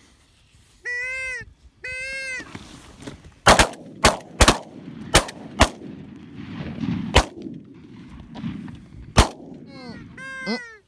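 Two honking calls, then shotguns fired at waterfowl overhead: seven shots between about three and a half and nine seconds in, the first five in quick succession and the last two spaced further apart. A few more honking calls come near the end.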